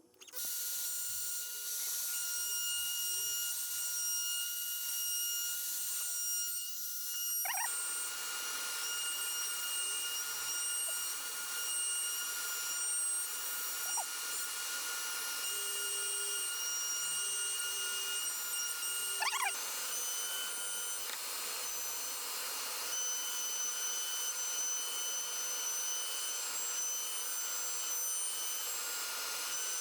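Shop vacuum motor switching on abruptly and running with a steady high whine. Twice, about 7 and 19 seconds in, the sound shifts briefly with a short rising sweep.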